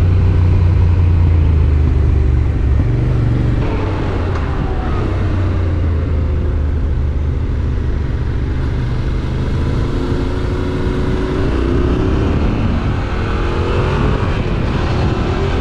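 Yamaha Ténéré 700's parallel-twin engine running through an Akrapovič exhaust as the motorcycle rides along. The engine note shifts about three and a half seconds in, then climbs steadily over the last few seconds as it accelerates.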